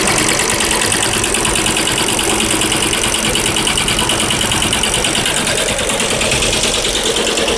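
Tai Sang multi-head computerized embroidery machine running, its needle heads and sequin devices stitching sequins at a fast, even mechanical rhythm.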